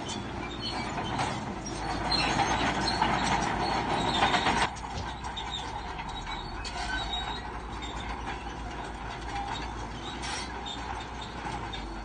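Crawler bulldozer working, a dense clatter of many short clanks from its steel tracks and the rock it moves. The noise drops suddenly after about five seconds and carries on more quietly.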